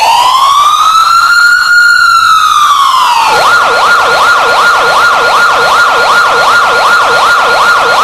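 Loud emergency-vehicle-style siren. It makes one slow rising and falling wail, then about three seconds in switches to a fast yelp, sweeping up and down about two and a half times a second.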